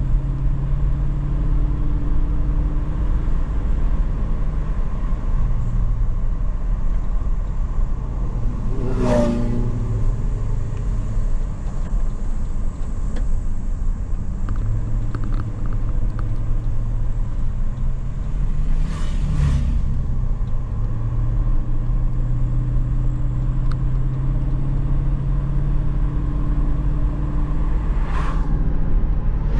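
Steady engine and road noise of a vehicle driving a mountain road, the engine note stepping up and down. Three times, another vehicle passes close by in a quick rush of sound. The first pass, about a third of the way in, drops in pitch as it goes by.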